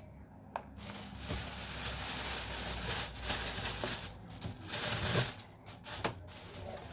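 Thin plastic bag crinkling and rustling in irregular bursts as yardlong beans are pulled out of it by hand.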